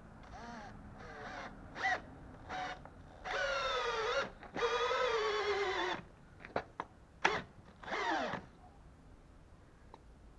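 Makita DHP481 18V cordless drill driver driving a long wood screw into timber in stop-start trigger pulls. Short whirring bursts come first, then two longer runs a little past the middle, the second sinking in pitch as the motor labours under load. A few short blips follow, ending in a falling spin-down.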